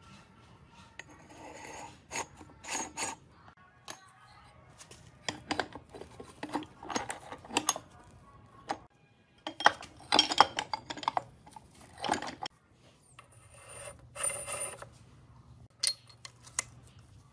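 Metal clinks, knocks and light scrapes as the steel gears, cone pulley and spindle bearing parts of an antique JUNIOR lathe headstock are handled and fitted into its cast-iron housing. A string of separate irregular clinks, the loudest around ten seconds in.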